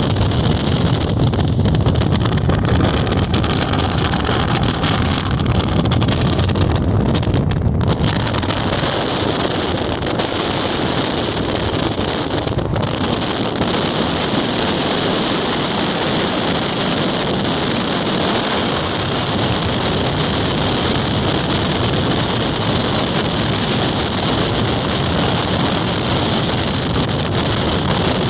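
Steady rush of wind buffeting the microphone, with the rumble of a moving vehicle beneath it. The low rumble is heaviest for the first eight seconds or so, after which the noise turns brighter and hissier.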